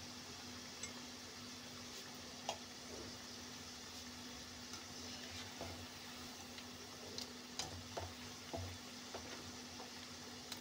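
Onion pakoras deep-frying in a kadhai of hot oil, a steady sizzle over a faint steady hum. Light scattered clicks of a wire skimmer stirring them come more often in the second half.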